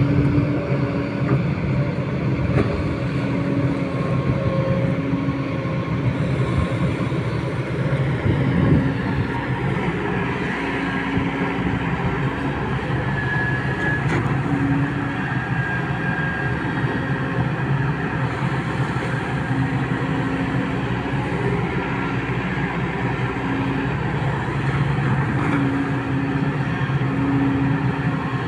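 Kobelco SK200 hydraulic excavator's diesel engine running steadily under working load as the arm and bucket dig in a water-filled canal, with a low tone in the engine note that comes and goes every few seconds.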